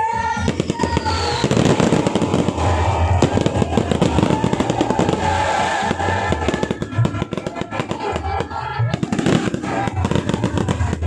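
Fireworks going off in a rapid, continuous stream of bangs and crackling, thinning briefly in the middle and picking up again near the end, with music playing underneath.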